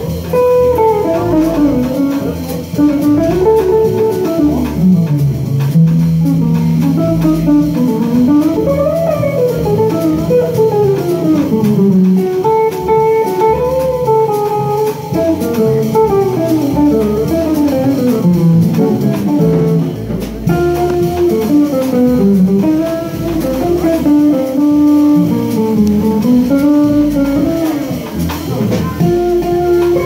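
Live jazz trio: a hollow-body electric guitar plays flowing single-note lines that climb and fall, over upright bass and drums.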